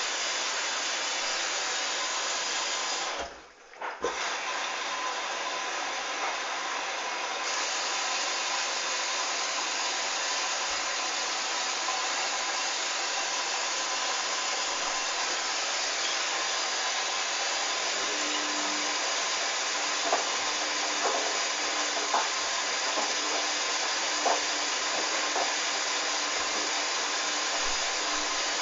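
Hoover DYN 8144 D washing machine running with a steady rushing noise, which drops out briefly about three seconds in. A low hum joins about two-thirds of the way through, with a few light knocks near the end.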